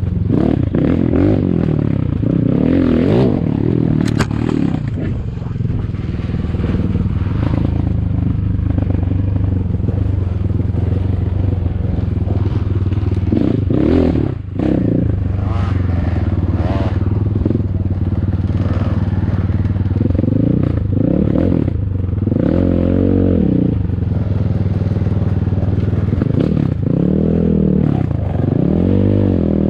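ATAKI DR 250 enduro motorcycle engine running while riding, with the pitch rising and falling as the throttle is opened and closed, several times in the second half.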